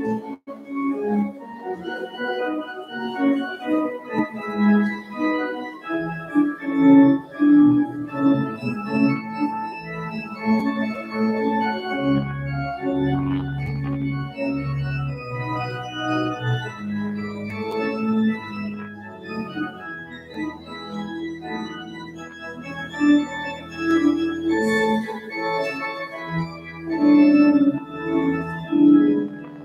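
Organ playing a processional in held chords, with deep bass notes joining about twelve seconds in.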